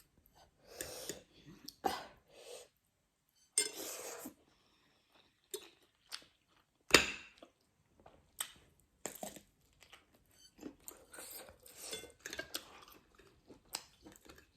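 Close-miked eating: chewing with some crunching, and utensils clinking against dishes, with one sharp click about seven seconds in.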